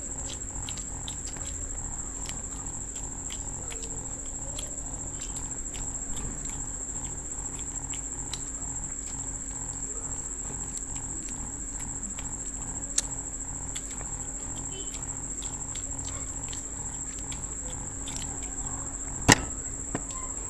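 Faint clicks and smacks of people chewing and eating pizza, over a constant high-pitched whine and a low steady hum, with one sharp click near the end.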